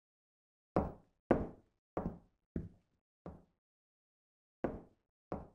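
Footsteps on a hard floor, about one every two-thirds of a second, growing fainter as they walk away; after a pause of a second or so, two more steps come near the end.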